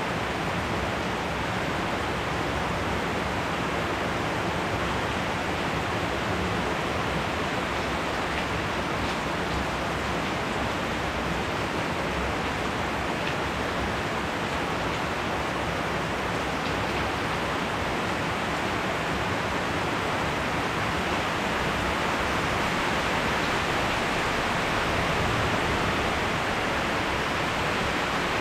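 Rain falling steadily in a spring thunderstorm: an even hiss of rain with no thunder clap, growing a little louder in the last few seconds.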